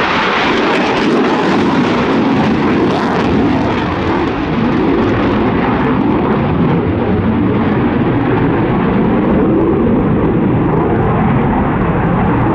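Eurofighter Typhoon FGR4 flying with its twin Eurojet EJ200 turbofans in afterburner: loud, steady jet noise. Its higher hiss thins out gradually from a few seconds in as it draws away.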